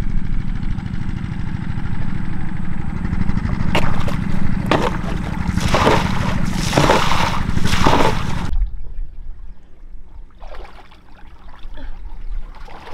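A small engine runs steadily while water splashes several times, loudest about five to eight seconds in. A little past eight seconds the engine and the splashing stop suddenly, leaving quieter, scattered water trickles and splashes.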